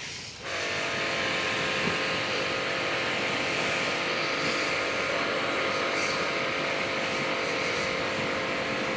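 Small electric pressure washer running and spraying water onto a split air conditioner for cleaning: a steady motor hum under a loud spray hiss. It starts abruptly about half a second in and holds steady throughout.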